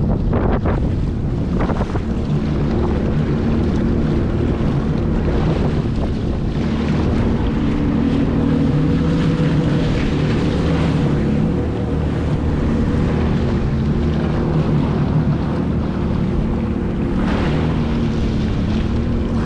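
Jet ski engine running steadily under way, with heavy wind buffeting the microphone and water rushing and splashing against the hull.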